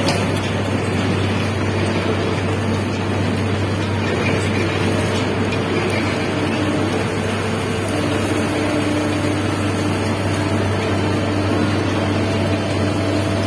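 Steady machinery drone of a sugar mill's overhead grab crane working over a cane trolley, with a low hum throughout. A higher motor whine comes in about eight seconds in as the grab lifts the cane.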